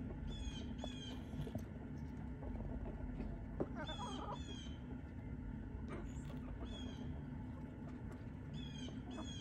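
Bird calls: short bursts of high, quickly repeated chirps, heard several times, with a lower, harsher call about four seconds in, over a steady low hum.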